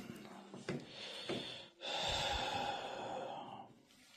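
Two light knocks of keyboards being handled on a desk, then a long breath out lasting about two seconds.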